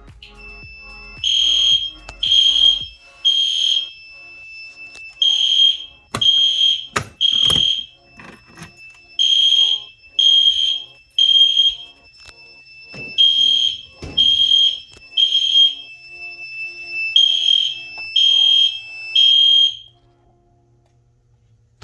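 Fire alarm horns sounding the temporal-3 evacuation pattern: five rounds of three short, shrill beeps, each round followed by a pause, over a steady high electronic tone. The horns stop about 20 seconds in. They are kept beeping together by a System Sensor sync module.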